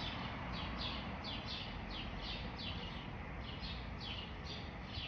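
A songbird singing a steady run of short, downward-slurred chirps, about three a second, over steady low background noise.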